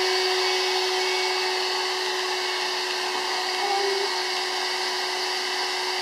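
A small electric vacuum cleaner's motor running steadily: a constant hum with one steady tone in it.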